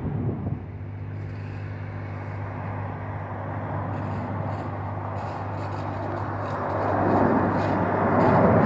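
Airliner approaching with its landing lights on; its engine noise swells over the last couple of seconds as it nears. A steady low hum runs underneath.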